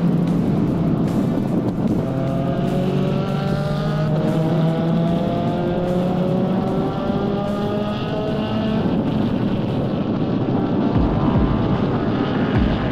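Spec Racer Ford Gen3 race car's four-cylinder engine running hard at racing speed, its pitch climbing steadily for several seconds as the car accelerates, then changing about nine seconds in, with road and wind noise throughout.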